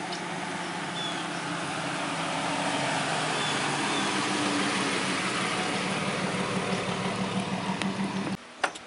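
Chevrolet pickup truck driving past on a country road, engine and tyre noise growing louder as it approaches, loudest about halfway through as it passes, then slowly fading, and cutting off abruptly shortly before the end.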